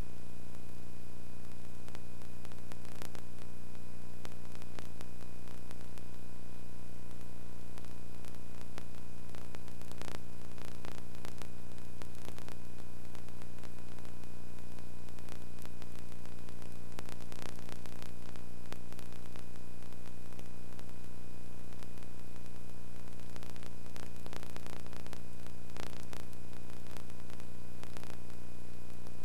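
Steady electrical hum with hiss and scattered crackles, with no live sound from the game.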